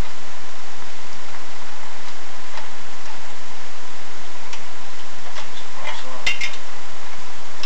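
Light metallic clicks and clinks of hand tools and small metal parts being handled on a small engine, with a short cluster of sharper clinks about six seconds in, over a steady hiss.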